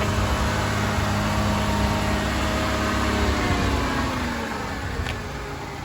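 GM 3800 V6 engine of a 1994 Pontiac Bonneville running at a raised idle. The revs drop about three and a half seconds in and the sound gets quieter. The engine has an unsteady idle that the owner puts down to a faulty ignition module.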